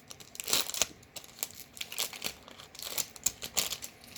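Crinkling of a foil Magic: The Gathering booster pack wrapper and the rustle of cards being handled, in a string of irregular crisp bursts.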